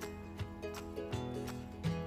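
Background music: plucked-string instruments with a steady, regular beat.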